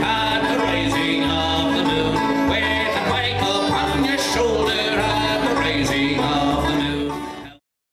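Live acoustic folk band playing: banjo and two strummed acoustic guitars, with male voices singing. The music fades out and stops near the end.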